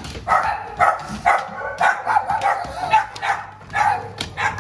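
A dog barking repeatedly, a quick run of short barks two or three a second.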